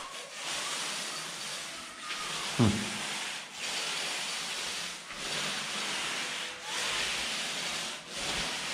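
Paint roller on an extension pole rolling wet fixateur primer over a plastered wall: a rasping hiss in long up-and-down strokes, about one every second and a half. A short falling sound about two and a half seconds in.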